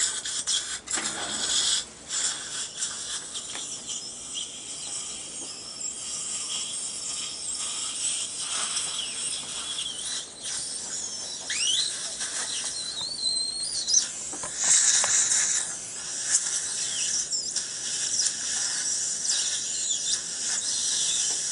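Dental surgical suction and water spray hissing, with irregular high squeals and short whistling glides.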